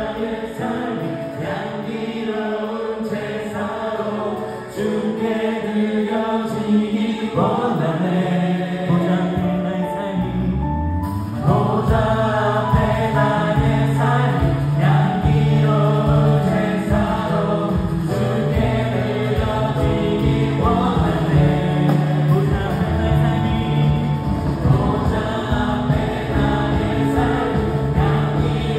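Live contemporary worship band with voices singing a praise song, backed by keyboard, electric guitar, bass guitar and drums. The bass and drum beat come in stronger about eleven seconds in.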